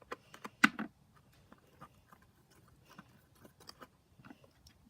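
Wooden stick stirring borax-activated slime in a bowl: scattered small sticky clicks and taps, with one sharper tap under a second in.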